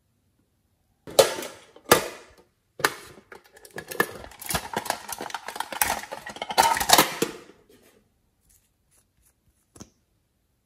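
A fish-shaped printed tin box being handled. Two sharp metallic clicks about a second apart are followed by about five seconds of irregular clicking and clattering of the tin, which stops shortly before the end.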